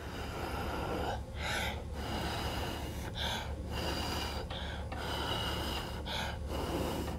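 A person blowing hard and repeatedly across wet acrylic paint on a canvas to push and stretch it, each long blow broken by a quick, audible breath in. The breath sounds are close and loud on a clip-on microphone.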